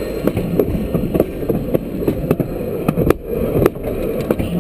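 Light-rail tram rolling past at very close range: a steady low rumble of steel wheels on the rails, broken by repeated sharp clicks and knocks.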